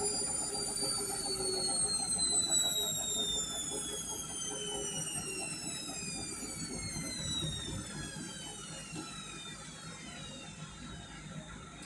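Indesit washing machine spinning down at the end of an intermediate spin, the drum motor's whine falling steadily in pitch and fading as the drum slows.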